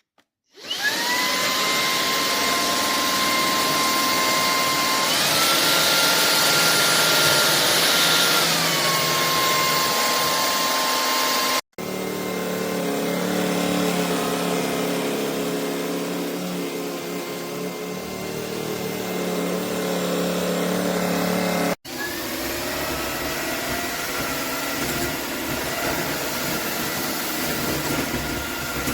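Shark PowerPro cordless stick vacuum running. Its motor starts up about half a second in with a rising whine, steps up to a higher pitch around five seconds in and drops back about four seconds later. The sound cuts off abruptly twice, and the vacuum runs again after each break, with a lower, rougher note in the middle stretch.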